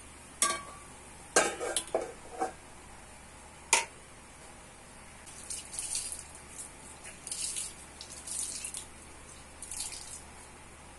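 Metal clanks of a spatula and lid against a metal wok, a cluster in the first few seconds with a last sharp one nearly four seconds in; then on-and-off sizzling of pork and vegetables cooking in the covered wok.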